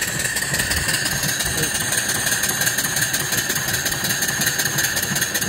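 Homemade mill steam engine with a 2 3/4-inch bore and 4-inch stroke, running on steam just after start-up, with a steady hiss of steam escaping around it.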